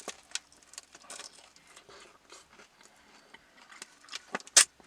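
Faint rustling and small clicks of fast-food paper packaging being handled as an apple pie is unwrapped, with one sharp knock near the end.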